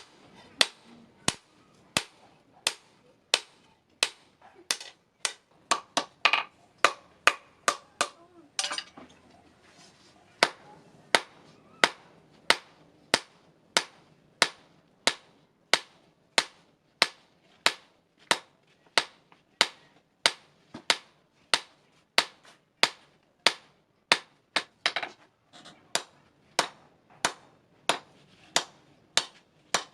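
Hammer blows on metal, struck in a steady rhythm of about one and a half to two a second, each blow sharp with a short ring; the blows pause briefly about ten seconds in. This is typical of hand forging iron on an anvil.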